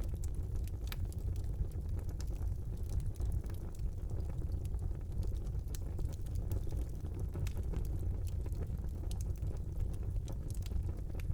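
Wood fire burning in a fireplace: a steady low rumble of the flames with frequent sharp crackles and pops at irregular moments.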